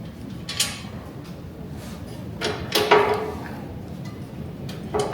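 Steel mounting parts being handled and taken off: a short clack about half a second in, then a ringing metal clank near three seconds, over a low steady shop hum.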